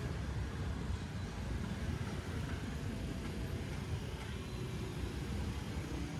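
Street traffic ambience: motor scooters and cars riding past, heard as a steady low rumble with no single standout event.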